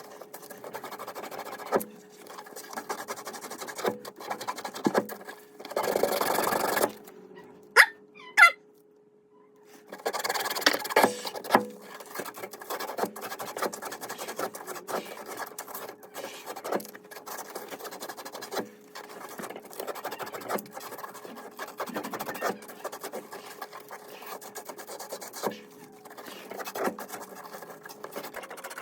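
Hands-on work fitting new angle stop valves onto the supply pipes: irregular clicks, taps and rubbing of metal parts, with a brief scraping burst and two short squeaks a few seconds in, over a steady low hum.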